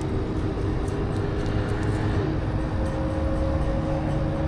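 Steady low mechanical drone with a humming tone that falls in pitch about two seconds in, then a higher hum joins.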